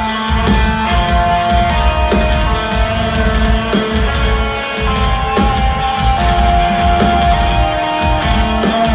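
A metal band playing live: distorted electric guitars holding a melodic line of long sustained notes over heavy drums and bass.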